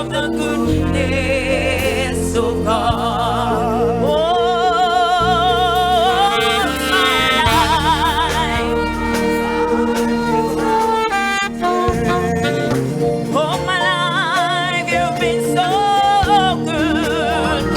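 Live gospel worship song: a singer's voice with wide vibrato over sustained keyboard chords and bass.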